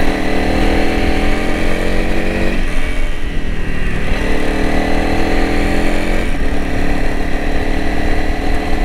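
2021 Honda CRF300L Rally's single-cylinder engine running while the bike is ridden. The engine note drops away briefly about two and a half seconds in, comes back about four seconds in, and changes pitch again about six seconds in.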